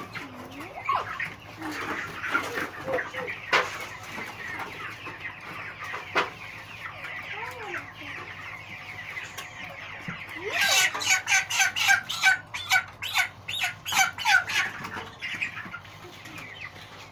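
Chickens clucking and calling. About ten seconds in, a louder, faster run of sharp sounds lasts some four seconds.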